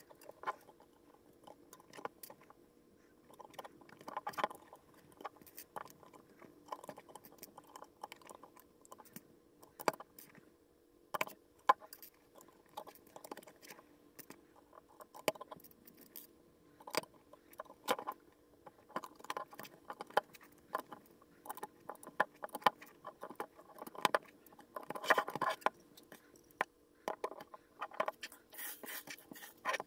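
Small plastic LEGO pieces clicking and clattering: pieces picked from a loose pile on a hard tabletop and pressed onto a brick model, in irregular sharp clicks with short rattling flurries.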